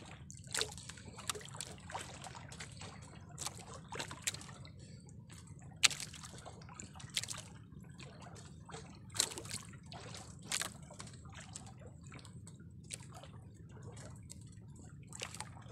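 Seawater sloshing and dripping, with irregular small sharp splashes about once a second over a steady low rumble, as a fishing handline is hauled in from the water.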